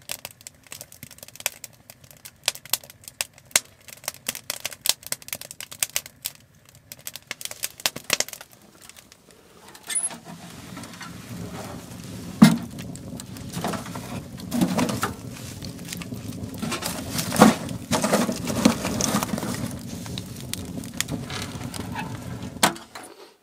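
Wood fire crackling and popping in a small tent wood stove. From about ten seconds in, a steady low rushing sound of the burning fire runs under the crackles, with a few louder pops, and it cuts off suddenly near the end.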